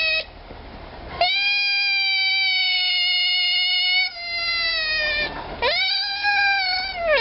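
African clawless otter pup making long, high-pitched whistling calls while suckling from a bottle: about a second in, one steady call of about four seconds, then a shorter call that rises and falls.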